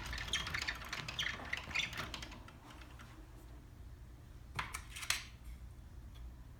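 Small plastic containers handled by hand: a plastic mixing cup and an epoxy bottle clicking and rattling in a quick run of light clicks for about two seconds. Two sharper clicks follow past the middle as the bottle's plastic cap is worked.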